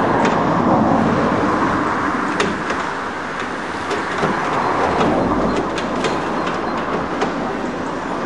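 Tracked excavator working, its engine and hydraulics running steadily while the bucket digs through stony spoil with scattered sharp clanks.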